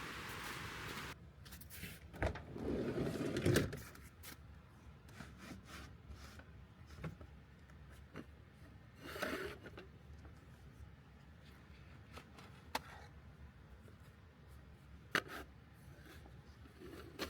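Objects being handled in a small enclosed space: scattered rubbing, scraping and sharp knocks. A steady hiss cuts off about a second in.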